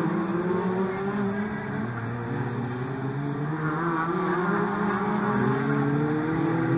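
Several stock car engines running at race pace around an oval track, their pitches overlapping and rising and falling as the cars accelerate and ease off through the bends.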